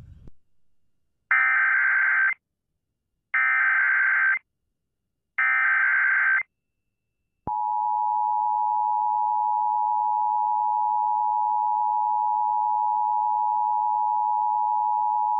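Emergency Alert System activation tones on AM radio: three one-second bursts of SAME digital header data about two seconds apart, then the steady EAS two-tone attention signal starting about seven seconds in. Together they mark the start of an emergency alert, here a tornado warning.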